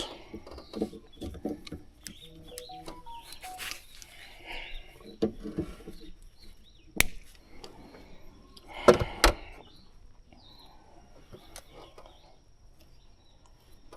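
Tools and parts being handled: scattered clicks and knocks, with a sharp click about seven seconds in and a louder pair of knocks about nine seconds in.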